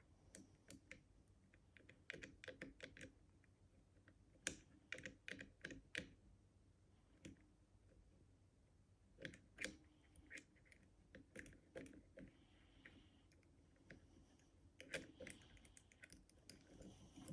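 Faint, irregular clicks and ticks of lock picks working the levers inside an Easi-T lever lock, coming in short clusters with quiet gaps between.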